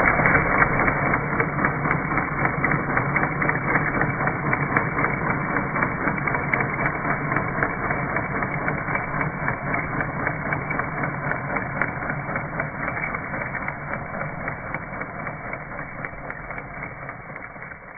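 Garden-railway track sweeper running, its spinning brush rattling against the rails and sleepers with dense, rapid clicking; the sound fades out slowly towards the end.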